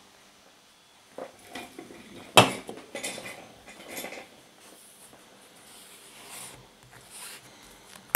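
Hard objects knocking and clattering on a workbench: a few scattered knocks, the loudest about two and a half seconds in, and a sharp knock at the very end as the solar battery pack is handled.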